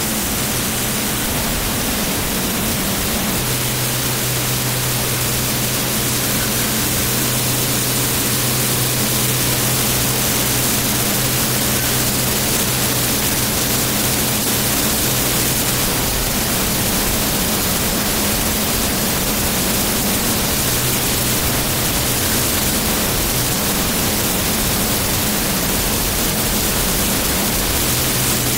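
Jet engine of the Flash Fire jet truck running, heard at close range as a loud, steady rushing noise with a low hum underneath that strengthens and fades.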